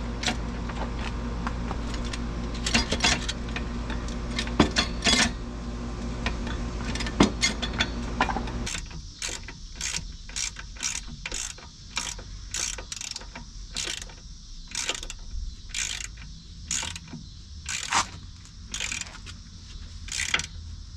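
Hand ratchet clicking in short strokes, about two to three clicks a second, as it runs down the ABS and brake line bracket bolt on a new front shock. A steady low hum under the first part stops about nine seconds in.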